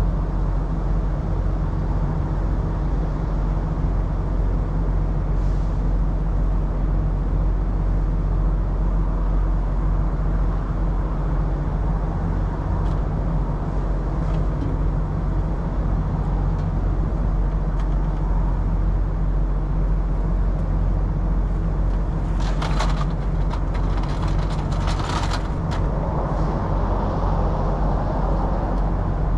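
Semi-truck diesel engine idling steadily. A few short hissing bursts come about three quarters of the way through.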